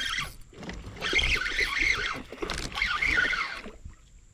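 Spinning reel being cranked in bursts about a second long, its whine wavering in pitch with the cranking speed, as line is wound in on a hooked largemouth bass that is pulling drag.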